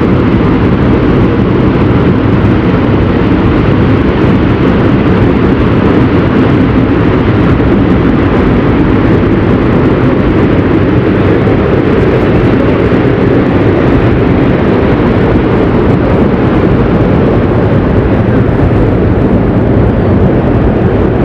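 Mount Bromo's crater vent giving off volcanic gas and steam: a loud, steady, deep rushing noise with no breaks.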